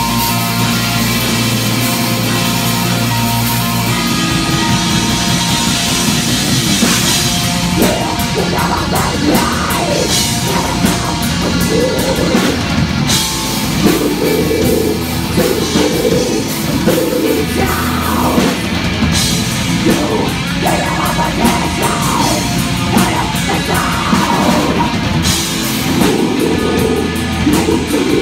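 A heavy metal band playing live through the club PA: a distorted electric guitar holds a ringing chord, then about four seconds in the drum kit, bass and guitar crash in together at a fast, dense pace. A vocalist's voice comes in over the band about eight seconds in.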